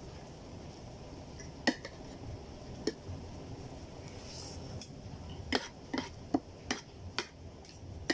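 Cutlery clinking and scraping against a plate while eating chow mein: a couple of single clinks, then a quicker run of them, about two a second, in the second half.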